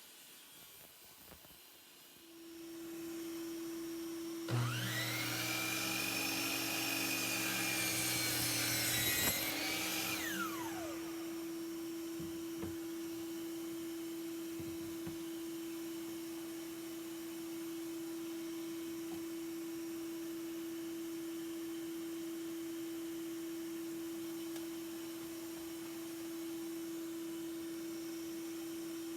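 SawStop jobsite table saw starts about four seconds in, runs with its pitch sagging and recovering as it cuts through the birch plywood, then is switched off and spins down about ten seconds in. A steady hum starts just before the saw and carries on after it.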